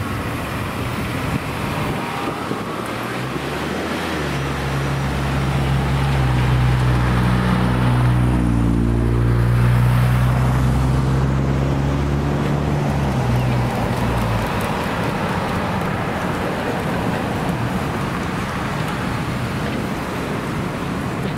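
A motor vehicle passes over steady road traffic noise: a low engine hum builds about four seconds in, is loudest around ten seconds and fades out by about fourteen seconds.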